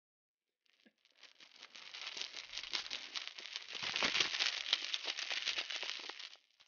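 Sound effect of heavy metal chains rattling and sliding, a dense clatter that builds from about a second in, is loudest around four seconds, then stops abruptly near the end.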